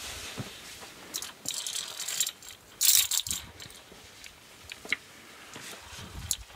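Metal via ferrata carabiners clicking and rattling against the steel safety cable as they are handled and moved along it. The loudest rattling comes in two bursts, about one and three seconds in, followed by a few single clicks.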